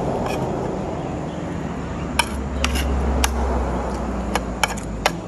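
Cutlery clinking against plates and dishes, about five sharp clinks starting about two seconds in, over a low steady engine rumble.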